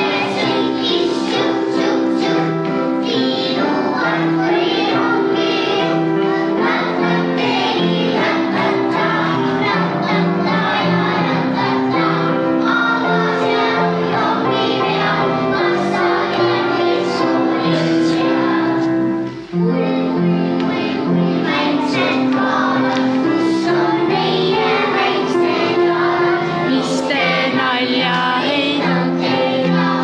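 A group of young children singing a song together, with musical accompaniment; the singing breaks off briefly about two-thirds of the way through and then resumes.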